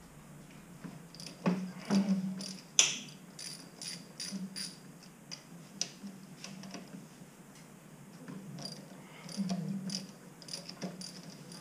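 Ratchet wrench clicking in short runs with scattered metal clinks and knocks, as the bolts of a Suzuki RMX450Z's cam cover are undone.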